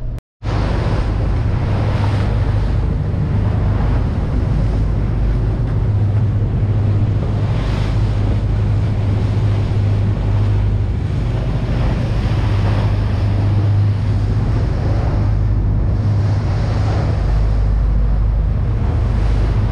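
Boat engine running with a steady low hum under wind buffeting the microphone and water rushing past the hull while the boat steams out.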